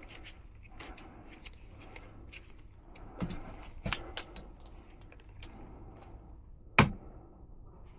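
Scattered clicks and light taps of a wall thermostat being handled and fitted, with one sharp knock near the end.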